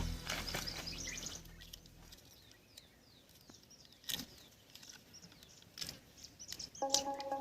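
Small birds chirping, a string of short high downward-sweeping calls, with two sharp knocks in the middle. Background music fades out over the first two seconds and comes back in near the end.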